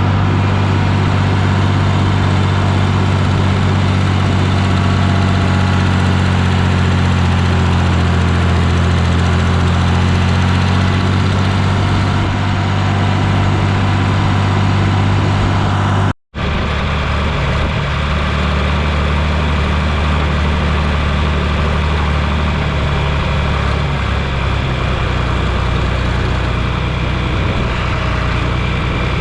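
Tractor engine running steadily. The sound drops out for an instant about halfway through, and afterwards the engine's tone is slightly different.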